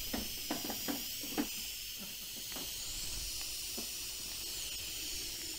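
Steady hiss of steam from a small 5-inch gauge live-steam locomotive, with a few light clicks in the first second and a half.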